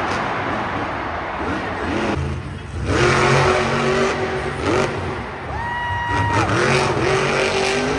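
Monster truck's supercharged V8 engine revving hard in repeated surges, its pitch climbing and falling several times over a dense roar of engine and arena noise.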